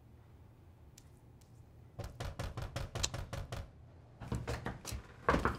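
Rapid, urgent knocking on a door in two flurries, the first about two seconds in and the second a little before the end, with a louder knock right at the end.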